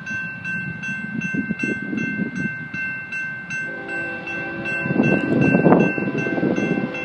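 Railroad grade-crossing bell ringing steadily, a few strokes a second, over the rumble of an approaching freight train that grows louder about five seconds in. A train horn sounds briefly about four seconds in.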